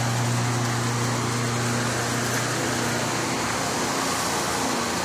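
A running engine or similar machine giving a steady low hum, with a broad rushing noise over it that does not change.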